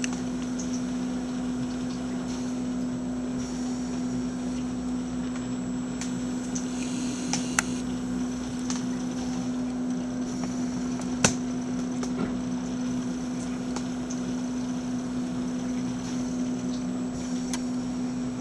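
Royal Deluxe model 931 metal-tank canister vacuum cleaner running steadily, its motor giving a constant hum with a steady tone. A few sharp clicks come through, one about seven and a half seconds in and a louder one about eleven seconds in.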